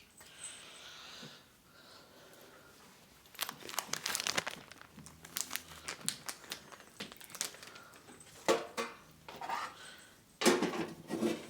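A crinkly treat packet being handled, crackling and rustling in irregular bursts, louder near the end.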